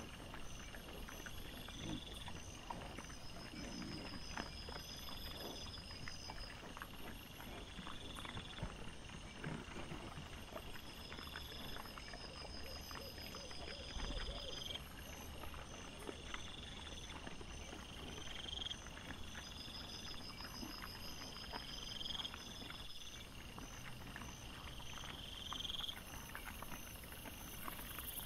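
Night insects chirping over and over: a short rising chirp about every two seconds, with rapid pulsing trills higher up. Under them come scattered rustles and crackles from wild boar rooting and trampling through dry leaf litter.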